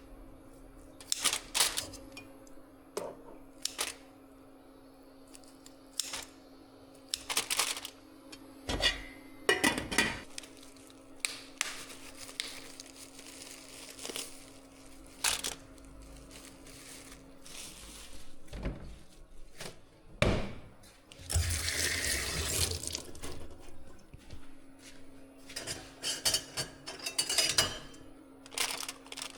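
Cooking sounds: dishes, pots and utensils clinking and knocking at irregular intervals over a steady low hum. About 21 seconds in, a rushing noise lasts about two seconds.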